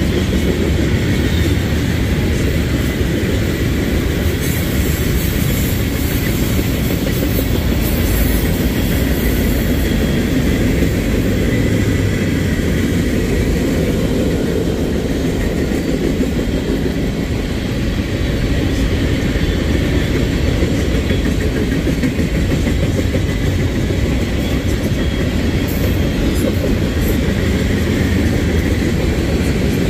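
Union Pacific manifest freight train's cars (tank cars, covered hoppers and boxcars) rolling past: steady, even noise of steel wheels running on the rails.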